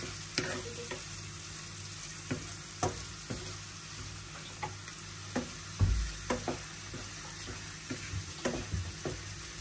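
Sliced chicken sausages sizzling in oil in a non-stick pan, stirred with a wooden spatula that knocks and scrapes against the pan every so often. There is a heavier knock about six seconds in.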